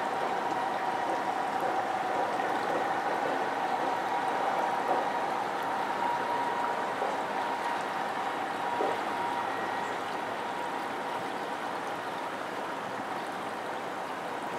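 A boat motor running at low speed, with a steady hum, while water gurgles and washes along the hull.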